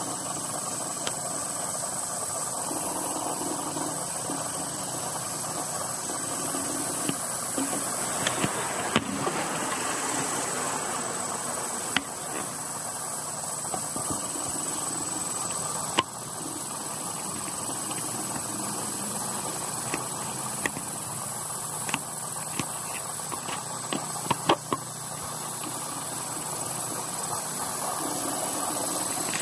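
Steady machine-like hum and hiss with a thin, high, steady whine over it, broken by a few sharp clicks.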